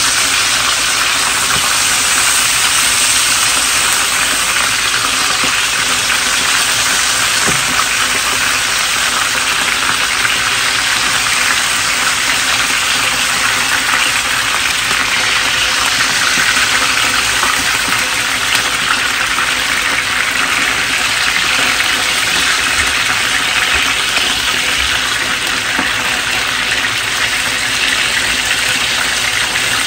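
Chicken leg quarters sizzling steadily in hot oil in an electric frying pan as they brown.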